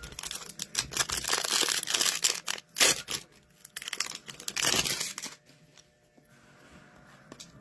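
A foil hockey card pack being torn open by hand, its wrapper crinkling and crackling in a run of bursts that stop about five seconds in.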